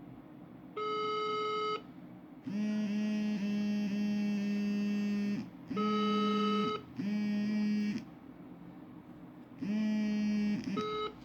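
Phone call tones from a mobile phone: a run of steady electronic beeps at two or three pitches, one about a second long, then longer tones of one to three seconds separated by short gaps.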